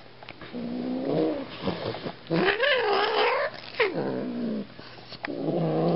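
Angry cat growling and yowling: a low, wavering growl, then a louder wail about halfway through that rises and falls, and a shorter falling yowl right after.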